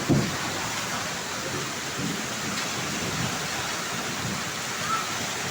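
Hailstorm with heavy rain: hail and rain pouring down in a dense, steady hiss.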